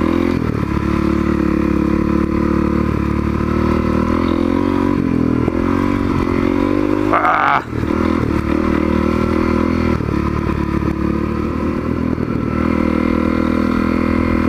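Honda CRF250L's single-cylinder four-stroke engine running at low revs, with a brief rev climbing about seven seconds in before dropping back.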